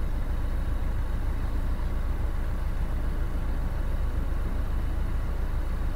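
Narrowboat's diesel engine running steadily under way, a constant low rumble.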